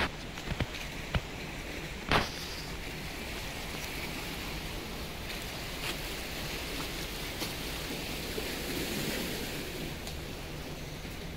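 Steady rushing seaside noise of surf and wind along a rocky shore, with a few sharp clicks in the first two seconds.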